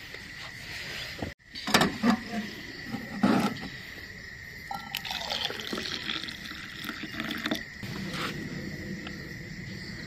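Hot milk tea poured from an aluminium camping pot into a metal mug, after a few knocks of cookware. A thin steady high tone runs underneath.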